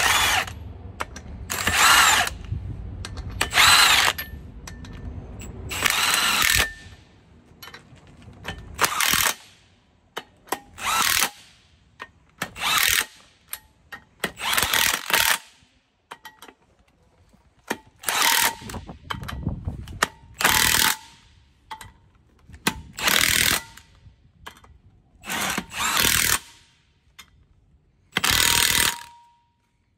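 Milwaukee Fuel brushless cordless impact wrench running on the bolts that hold a truck brake rotor to its hub: about a dozen short bursts, each under a second, with brief pauses between.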